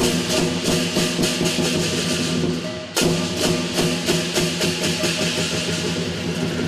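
Lion dance percussion: drum and cymbals beating a fast, steady rhythm over sustained ringing tones. The sound breaks off and starts again about three seconds in.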